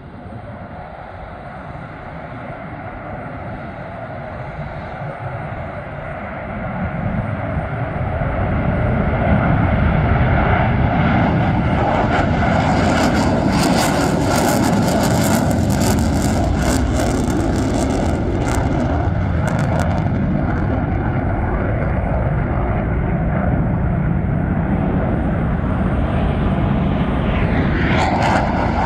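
McDonnell Douglas F-15C Eagle twin-engine fighter jets taking off on afterburner: the jet roar builds over the first eight or nine seconds to a loud, steady rumble, with crackling mixed in from about twelve to twenty seconds in and again near the end.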